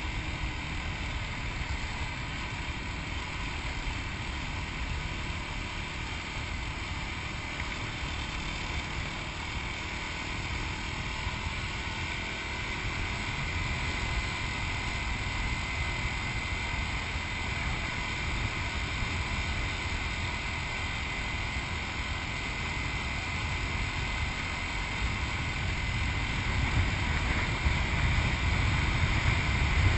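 Yamaha WR250X's single-cylinder four-stroke engine running while under way, with wind noise over the microphone. It grows louder over the last few seconds.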